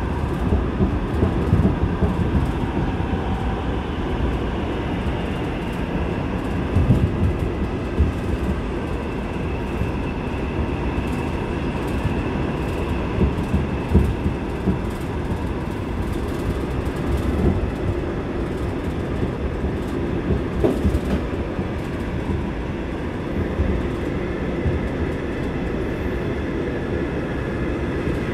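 Seoul Subway Line 8 train running at speed through a tunnel, heard from inside the car: a steady rumble of wheels on rail with scattered clicks and a faint high whine that drifts slowly in pitch.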